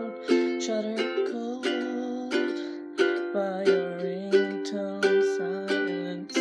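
Instrumental music: chords strummed on a small acoustic stringed instrument in a steady rhythm, with no singing.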